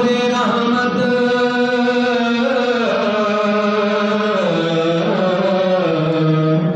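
A man's voice reciting a naat, a sung Urdu devotional poem, as a continuous chant of long held notes. The notes step down in pitch a few times in the second half.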